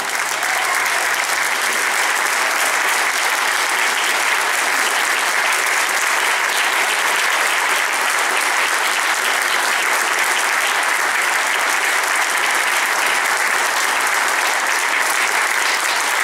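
Audience applauding steadily after a brass band piece ends, with a faint low note from the band dying away over the first few seconds.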